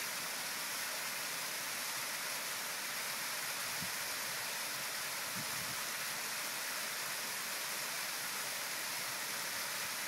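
Small waterfall of acid mine drainage water splashing steadily down a rock face, an even, unbroken rush of falling water.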